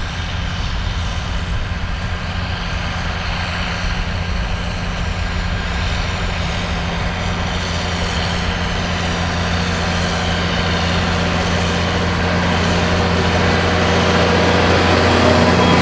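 Diesel engine of a New Holland tractor working across a tilled field, a steady drone that grows louder as the tractor comes closer, loudest near the end.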